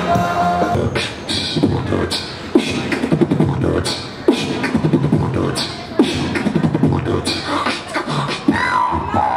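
Beatboxing into a handheld microphone, amplified: a rhythm of punchy low kick-like strokes and sharp hissing hi-hat and snare sounds, ending in gliding, wavering vocal tones.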